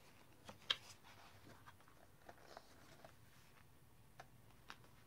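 Faint handling of a photobook's pages: a page turned over with a few soft paper taps and rustles, the sharpest one less than a second in.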